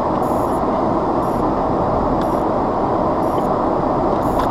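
Steady, loud rushing noise inside a car, with a faint high tick about once a second.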